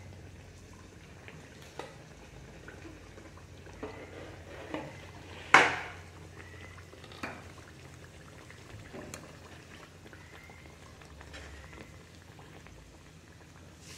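Bread pathiri deep-frying in hot oil in a kadai: a steady bubbling sizzle with several sharp pops, the loudest about five and a half seconds in.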